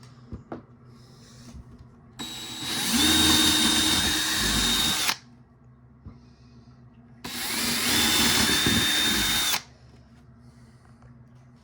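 Power drill running in two bursts of about three and two and a half seconds, each speeding up with a rising whine before holding steady: drilling holes to mount a smoke alarm.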